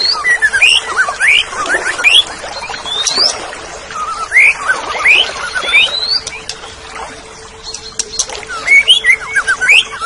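Orange-headed thrush (anis merah) singing: clusters of short, sharp whistled notes, most sweeping quickly upward, with a brief lull past the middle.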